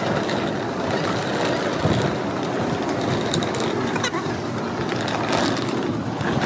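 Wheeled suitcases rolling over a concrete walkway, a steady rumble with a few light clicks.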